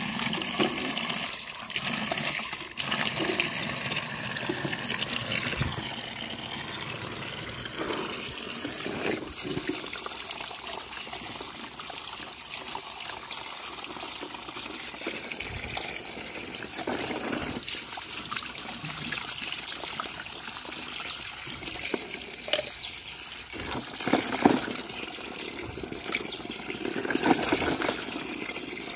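Tap water pouring steadily into a plastic tub of muddy water, splashing as plastic toy cars are rinsed by hand under the stream, with occasional brief knocks and splashes.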